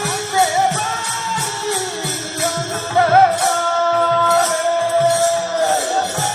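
Indian devotional music: a held melody with ornamented turns over a steady beat of jingling percussion and low drum strokes.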